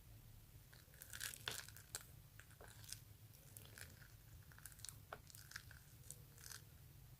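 Faint crackling and small crunchy ticks of whipped-cream flour dough being handled, with a slightly busier cluster of crackles about a second in.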